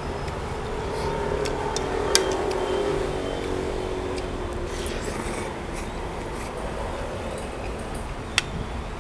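Eating sounds: grilled shrimp shells rubbing and crunching as they are handled and chewed, with two sharp clicks, one about two seconds in and one near the end, over a steady low rumble of road traffic.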